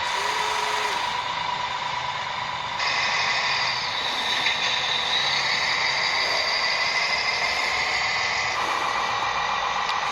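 Small electric motors and gearboxes of RC construction models whining steadily. A second, higher motor whine joins about three seconds in and fades again near the end.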